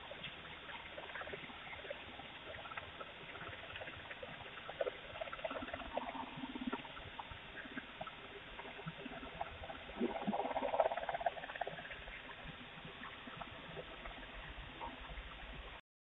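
Steady hiss through a doorbell camera's microphone with scattered small clicks and rustles, and a louder rustling, scraping stretch about ten seconds in; the sound cuts off abruptly near the end.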